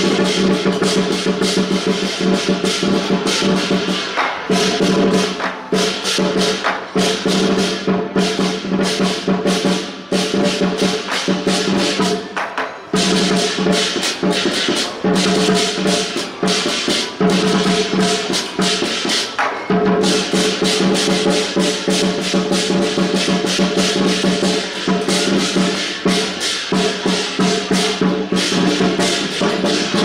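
Chinese lion dance percussion: a drum and cymbals struck in a fast, continuous rhythm over a steady ringing tone that drops out now and then.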